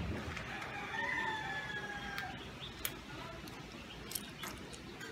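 A rooster crows once: one long call of about two seconds that sinks slightly in pitch toward its end. Afterwards come a few light clinks of coins being stacked by hand.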